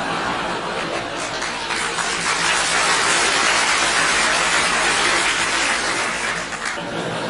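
Audience crowd noise, a dense haze of laughter and applause that swells in the middle and eases off near the end.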